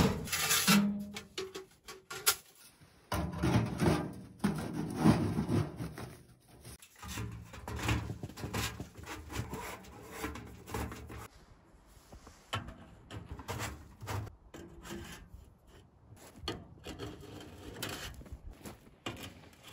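Metal stovepipe sections for a wood stove rubbing, scraping and knocking as they are pushed together and positioned, in irregular handling noises with short knocks throughout.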